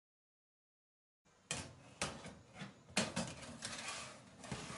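After about a second of silence, a metal baking tray is slid into an oven along its rack runners, with several sharp clanks and a rattling scrape between them.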